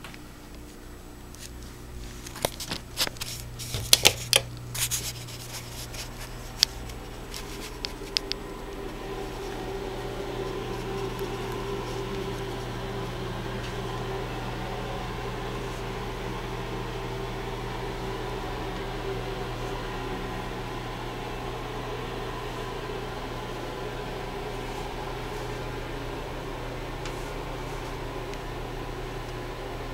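A run of sharp clicks and knocks over the first several seconds, then a steady whirring hum of a bathroom exhaust fan running in a small tiled room.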